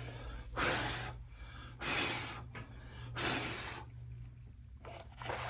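A person blowing hard four times in short puffs about a second apart, clearing dog hair off the radio parts, over a low steady hum.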